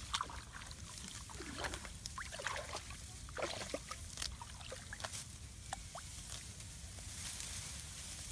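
Water splashing and sloshing in short irregular bursts, with scattered small clicks and knocks over a steady low rumble.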